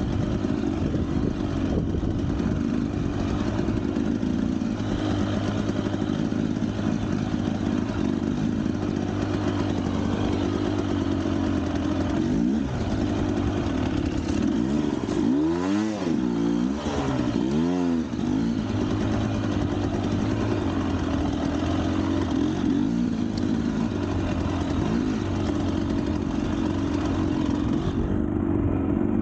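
Motorcycle engine running steadily with a clattery edge, revved up and back down twice about halfway through.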